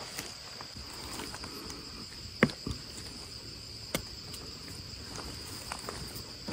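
Steady high-pitched insect drone, with a few sharp clicks and knocks from a small knife trimming a freshly picked wild mushroom. The loudest knock comes about two and a half seconds in and another at four seconds.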